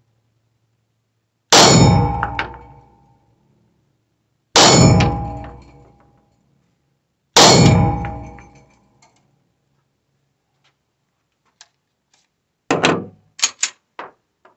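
Three 9mm shots from a Taurus TS9 pistol about three seconds apart, each ringing on in the echo of an indoor shooting range. Near the end, a quick run of sharp metallic clacks as the pistol is handled.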